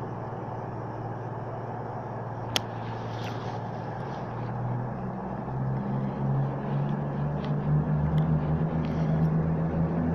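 CrossCountry Class 220 Voyager diesel multiple unit's underfloor diesel engines idling, then opening up and growing louder from about four seconds in as the train pulls away. A single sharp click about two and a half seconds in.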